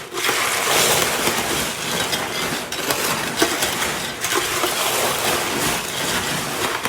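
Warm caramel-coated popcorn being stirred and tossed to cool, giving a dense, continuous crunching and rustling made of many small crackles.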